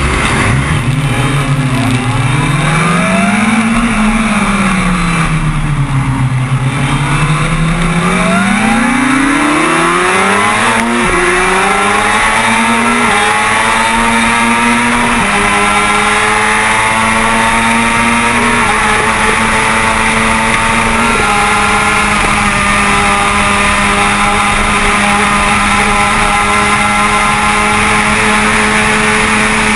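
Kawasaki ZX-6R 636 inline-four sport bike engine, recorded onboard: the revs rise and fall once, then climb hard as the bike accelerates away through the gears, the pitch stepping a few times at the shifts, and from about 21 seconds in it holds a steady high note at speed. Wind rush runs under it throughout.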